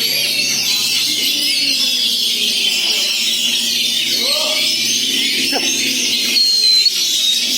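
Many oriental magpie-robins singing at once in a dense chorus of whistles and warbling chatter, as at a songbird contest, with people's voices calling underneath.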